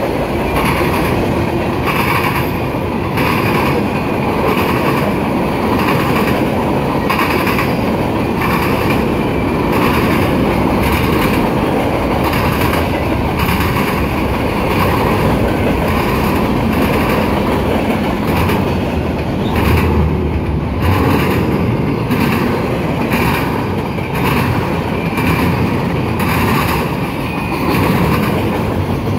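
Loaded freight cars rolling past, their wheels banging over the rail joints of a diamond crossing in a steady, repeating clickety-clack over a continuous rumble of the train.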